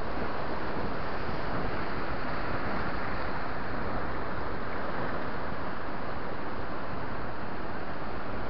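Steady rush of surf breaking and washing among rocks, mixed with wind on the microphone.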